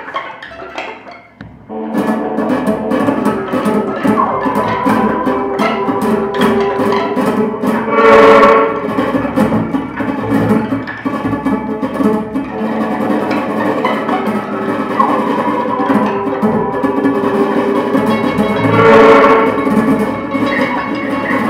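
Live free-improvised ensemble music. After a sparse, quiet opening the full group comes in abruptly about two seconds in, with sustained pitched tones, many sharp clicks and hits, and two louder swells, one near the middle and one near the end.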